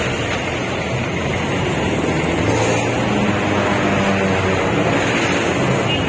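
Jeepney's diesel engine running steadily as it drives, heard from inside its open-sided passenger cabin along with road and traffic noise.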